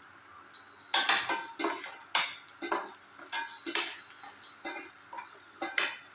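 Metal utensil clinking and scraping against a cooking pan, a dozen or so irregular strokes starting about a second in, as the food in the pan is stirred.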